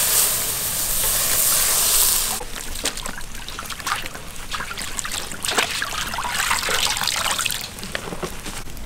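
Water splashing as a wet, feathered chicken is lifted out of a wok of water and sloshed around in a metal basin. There is a loud rush of water for the first two seconds or so, then lighter splashing and dripping.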